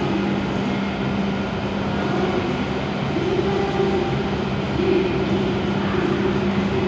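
Steady low electric hum and drone from a Shinkansen train standing at the platform, with a constant pitched tone under a haze of station-hall noise.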